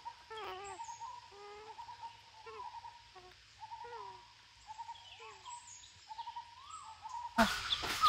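A group of grey-headed parakeets giving short, repeated squawking calls that bend in pitch, quite soft at first; the calls get louder about seven seconds in.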